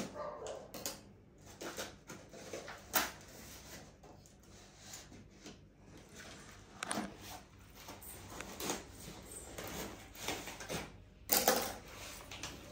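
Irregular clicks, knocks and rustles of a boxed item's parts and packaging being handled and unpacked, with a louder clatter about eleven seconds in.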